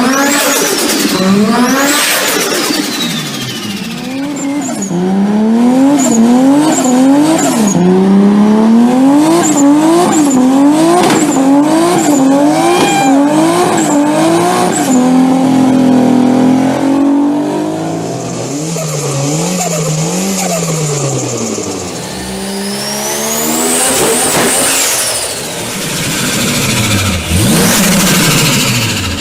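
Turbocharged car engine revved again and again in quick blips, its pitch rising and dropping over and over. Each time the throttle closes, the turbo flutters with a rapid chattering "sututu" from compressor surge. A high turbo whistle sweeps up and down near the start and again near the end.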